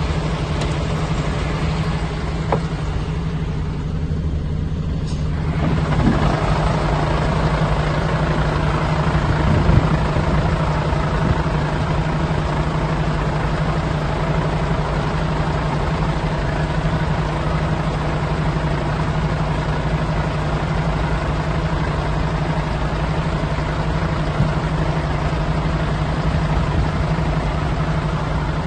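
MAN TGA 26.350 tipper truck's diesel engine running steadily with a low hum while its hydraulics raise the tipper body. About five seconds in, the sound grows fuller and then holds steady.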